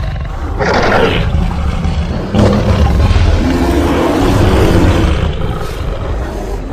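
Custom-made Vastatosaurus rex roar sound effect: a short snarl about half a second in, then a long, deep roar with a heavy low rumble starting about two and a half seconds in and tailing off near the end.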